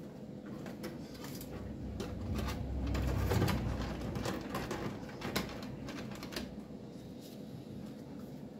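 Scattered clicks and light knocks of a motherboard and parts being handled and fitted inside a small sheet-metal mini PC case, with a low rumble swelling a few seconds in.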